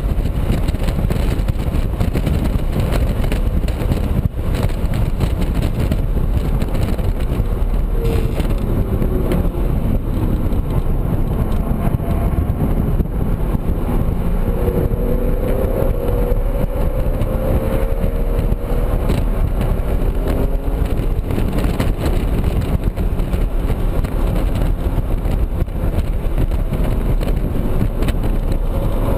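Inside the cabin of a 2007 BMW Z4 M Coupe on track, its straight-six with an aftermarket aFe intake runs under loud wind and road noise at high speed. Around a third of the way in, the engine note falls as the car brakes hard and changes down from fourth to third. About halfway through it rises again as the car accelerates in third gear.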